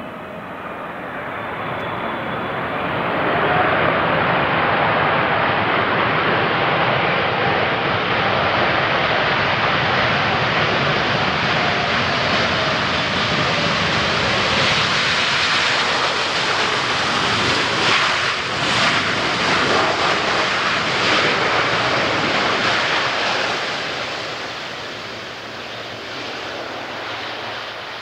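Boeing 777 freighter's GE90 turbofan engines in reverse thrust during the landing rollout. A loud, steady rush of jet noise builds over the first few seconds after touchdown, holds, then dies away over the last few seconds as the aircraft slows.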